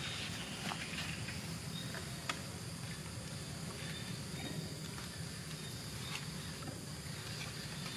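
Steady outdoor background noise with a low hum, faint high insect chirps and a few faint ticks.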